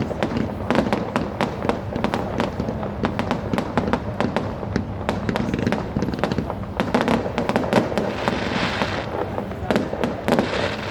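Fireworks: a dense, unbroken rattle of firecracker and rocket bangs, many sharp cracks a second, with a hissing crackle swelling about eight seconds in.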